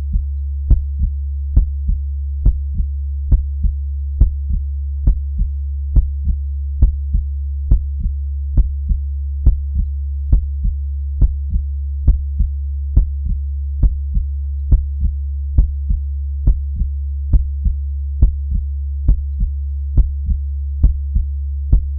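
Heartbeat sound, a slow, steady lub-dub double thump at about seventy beats a minute, over a constant low hum.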